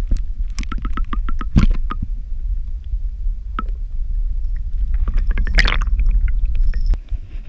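Muffled underwater sound of lake water moving around a submerged action camera: a heavy low rumble and gurgling, with several sloshing splashes, the strongest about one and a half and five and a half seconds in. The rumble drops away suddenly about seven seconds in as the camera comes out of the water.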